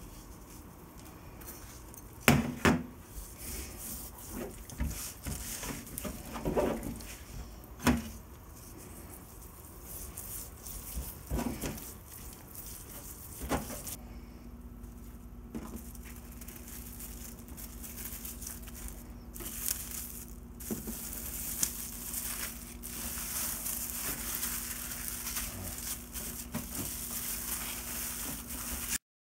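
Hands rubbing a dry salt-and-spice cure into a raw wild boar leg, with a few sharp knocks and clinks along the way. About halfway through a steady low hum comes in, and in the second half plastic cling film crinkles and rustles as the meat is wrapped.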